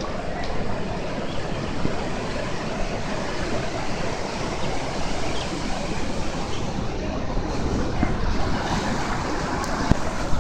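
Sea surf washing in and breaking on a shallow sandy beach, a steady rush of water, with wind rumbling on the microphone.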